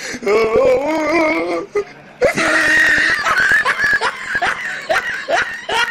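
A voice laughing and exclaiming over music, with a loud, shrill stretch from about two seconds in.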